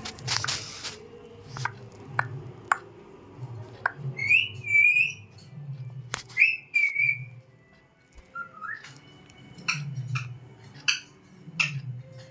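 Pet parakeet making short rising and falling whistles and sharp clicks, with a pause before a final rising whistle and a run of clicks. A brief rustle at the start.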